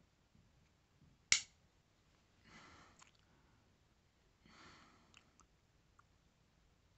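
Folding pocket knives being handled and set side by side: one sharp click about a second in, then faint breaths and a few light taps as the knife is positioned.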